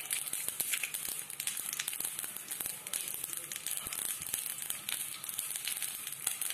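Mustard seeds, fenugreek and dried red chillies frying in a spoonful of hot oil for a tempering: a dense run of small pops and crackles over a steady sizzle.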